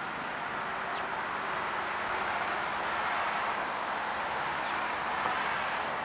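A steady even hiss, with a few faint short high chirps from small birds.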